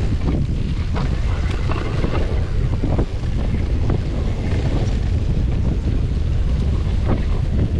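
Downhill mountain bike rolling fast over a dirt and gravel trail, with steady wind rumble on the microphone and scattered sharp knocks and rattles from the bike over bumps.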